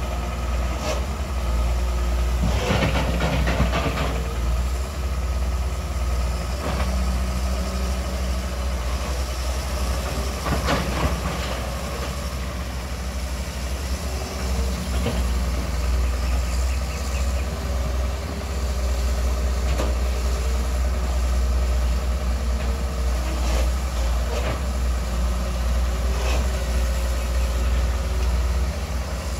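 Long-reach excavator's diesel engine running steadily, with occasional short knocks, the loudest about three and eleven seconds in.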